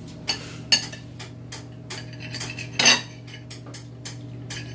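Metal tongs clicking and clattering against a plate and a foil-lined tray as barbecued ribs are served: a run of sharp clicks, with one louder clatter just after halfway.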